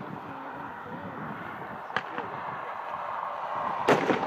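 A 3-inch nine-shot consumer fireworks cake firing: a sharp crack about two seconds in and a louder bang near the end, with faint crowd voices between.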